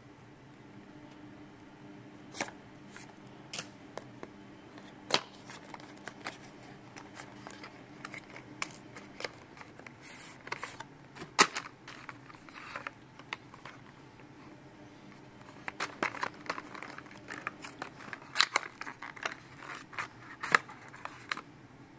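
Scissors cutting the seal on a cardboard smartwatch box, then the box being opened and its paper and plastic packaging handled: scattered snips, clicks and rustles, busiest in the second half.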